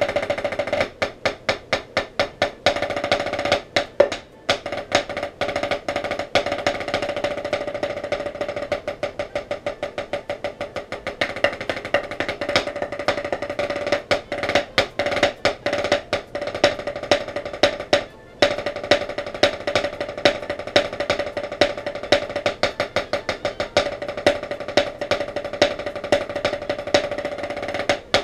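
Solo snare drumming with sticks: fast rudiment patterns, rolls and sharp accented strokes, with the drum head ringing at a steady pitch. The playing stops briefly about four seconds in and again at about eighteen seconds.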